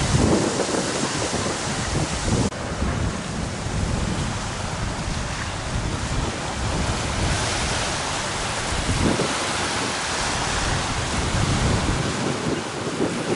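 Strong wind gusting over the microphone in low, irregular rumbling buffets, over a steady hiss of wind and choppy water.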